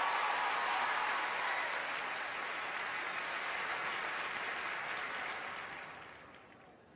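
Large audience applauding, the clapping dying away over the last two seconds or so.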